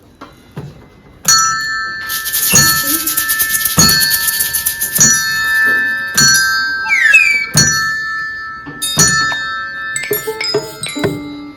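Classroom percussion played as sound effects: tuned metal bars struck and left ringing, with deep thuds about once a second. A fast high rattle runs for a couple of seconds, and a short rising glide comes about two-thirds of the way through.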